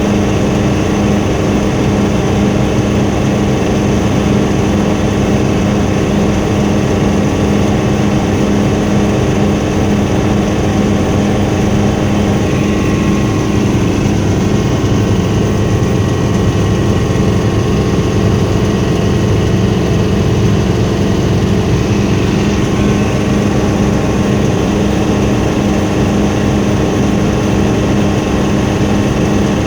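Helicopter in flight: steady engine and rotor drone with a constant low hum and no change in pitch or loudness.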